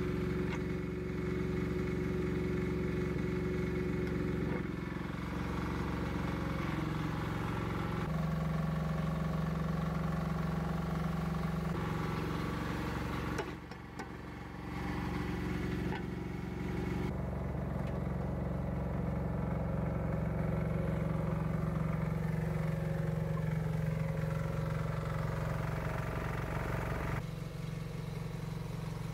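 Rhinoceros XN08 mini excavator's engine running steadily, its pitch stepping up and down several times, with a brief drop in level about halfway through.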